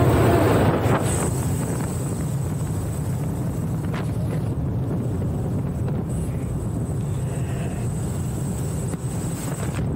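Steady drone of a light aircraft's engine and rushing air heard inside the cabin with the jump door open, with a thin steady high whine over it. A couple of faint knocks as jumpers shift toward the door.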